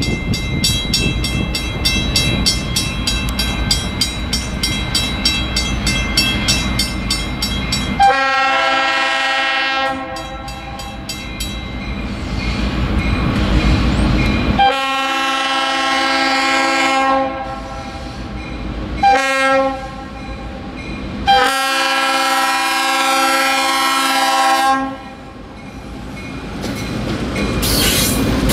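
Locomotive multi-chime air horn on NCVA 504 sounding the grade-crossing signal: two long blasts, one short and one long. Before the horn and again near the end, a crossing-signal bell rings fast and steadily over the rumble of the approaching diesel locomotives. The rumble grows louder as the lead locomotive reaches the crossing.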